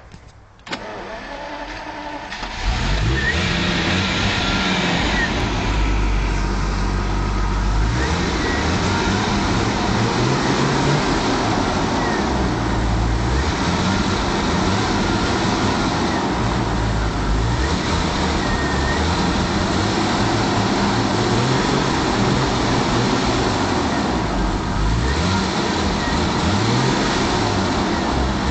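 1981 Jaguar XJ-S V12 engine being revved again and again, the pitch rising and falling with each blip of the throttle. The first couple of seconds are quieter, then the revving starts and keeps on.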